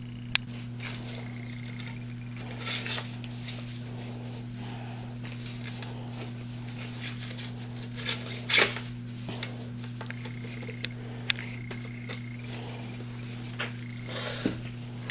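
Plastic tubes and connector pieces of a snap-together chair kit being handled and pushed together: scattered small clicks, taps and brief rustles over a steady low electrical hum.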